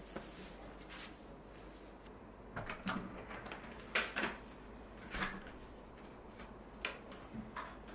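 A few soft knocks and brief rustles, spread a second or more apart, from a person handling clothes and moving about in a small room while undressing.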